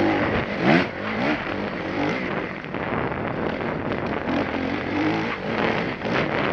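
Enduro dirt bike's engine revving up and down as it is ridden hard along a rough forest trail, with a loud knock from the bike under a second in.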